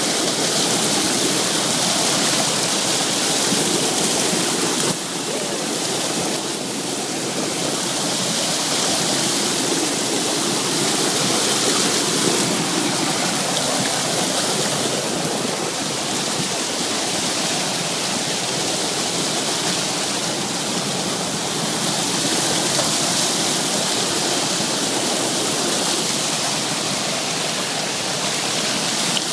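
Waterfall pouring down in a steady, continuous rush of water, dropping a little in level about five seconds in.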